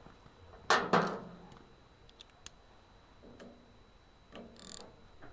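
Two sharp metal hammer blows about a second in, driving an undersized metric socket onto a star-pattern nut on a refrigerant compressor. They are followed by a few light metal clinks and a brief rasp near the end.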